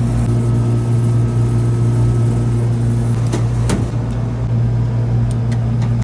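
Trane packaged air-conditioning unit running with a steady low hum, its replaced blower wheel and motor turning. A few light clicks about halfway through and again near the end.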